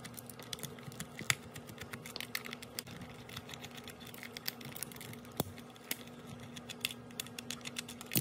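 Light, irregular clicking and ticking of a small screwdriver working screws out of the plastic shell of a Sega/Hasbro I-Dog pup robot toy, with a few sharper clicks along the way.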